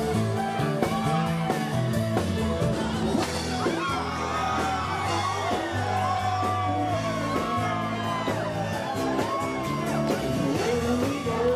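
Live band playing upbeat rock music with a steady drum beat, bass and guitar; a lead vocal comes in about a third of the way through.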